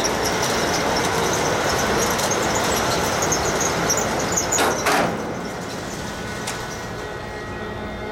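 Boat under way: a steady rush of engine and water noise with many short high squeaks. About five seconds in there is a brief louder rush, after which the noise drops and runs on more quietly.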